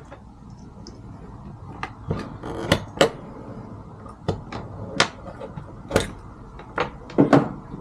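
Handling clicks and knocks: about nine separate sharp clicks scattered over several seconds as a LiPo battery pack and charger leads are handled and connected.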